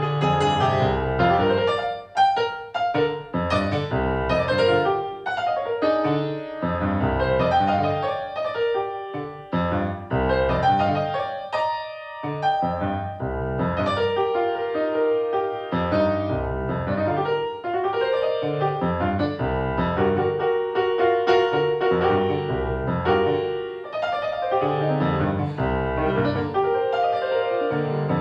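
Instrumental music led by a piano, with chords over a low bass line and a moving melody, played continuously with brief dips between phrases.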